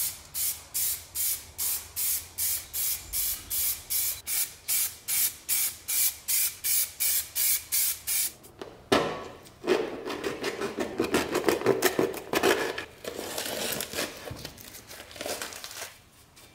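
Aerosol can of heat-resistant spray paint hissing in short, even bursts, about three a second. From about nine seconds in, a longer, rougher rustling noise follows.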